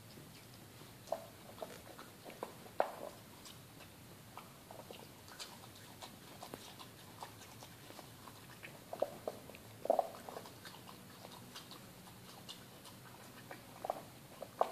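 A West Highland white terrier eating pear from a metal bowl: scattered crisp chewing and crunching bites, bunched about two seconds in, around nine to ten seconds in, and near the end.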